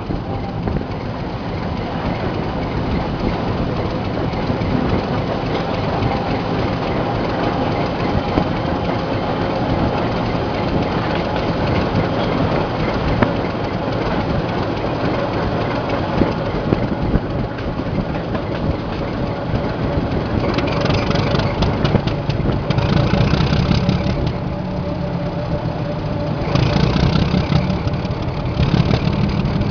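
GE-Cooper diesel-electric locomotive running with a train, heard from its cab window: a steady diesel engine note mixed with running noise. About twenty seconds in, and again near the end, it gets louder and harsher in stretches of a couple of seconds.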